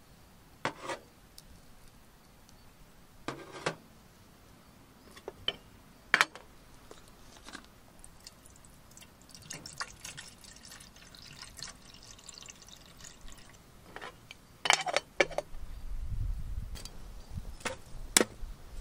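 Water poured from a bottle into a metal kettle for about four seconds, with a few sharp clinks and knocks of handled tableware before it. A low rumble with a few sharp clicks sets in near the end.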